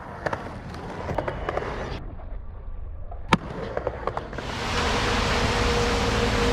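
Skateboard wheels rolling on a concrete bowl with scattered sharp clacks of the board, and one loud crack about three seconds in. From about four and a half seconds a steady hiss with a low hum takes over.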